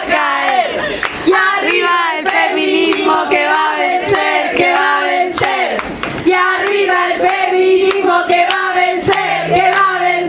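A woman singing live with other voices joining in, over rhythmic hand clapping in time with the song.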